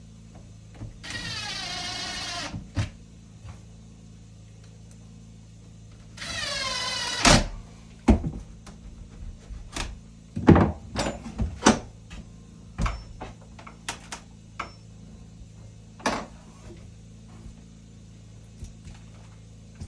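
A power tool's motor runs twice, about a second each, its pitch falling steadily each time as if bogging under load, followed by a series of sharp knocks and clicks from hand work on wood.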